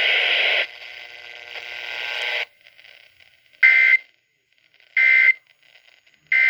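Emergency Alert System end-of-message data bursts over radio: three short, loud, buzzy digital squawks about a second and a half apart. They follow noisy broadcast audio that cuts off, then a fading hiss, and they mark the end of the alert.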